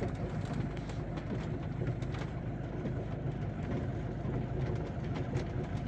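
Camper van engine running at low speed and its tyres rolling on a gravel track, heard from inside the cab, with scattered small clicks and rattles.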